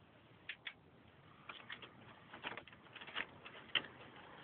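Model trains running on a model railway track: a string of faint, irregular clicks from the wheels over the rail joints, coming more often after about a second and a half.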